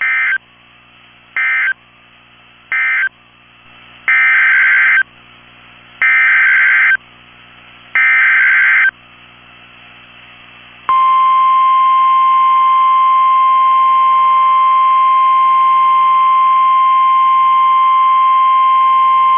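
Emergency Alert System data tones from NOAA Weather Radio: three short end-of-message data bursts, then three longer SAME header data bursts for the next warning, each about two seconds apart. Then comes the steady 1050 Hz warning alarm tone, held for about nine seconds, which heralds a tornado warning.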